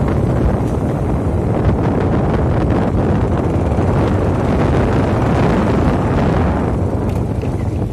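Heavy wind buffeting the microphone over the running of a motorcycle on a bumpy dirt track, with a few knocks from the bumps.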